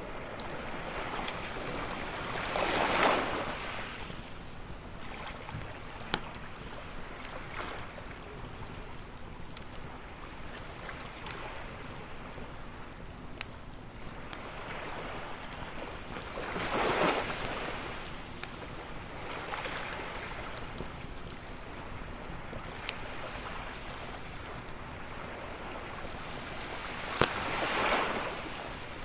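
Ocean waves breaking and washing up on a shore, three swells in all, over a constant hiss. A wood campfire crackles with scattered sharp pops between the waves.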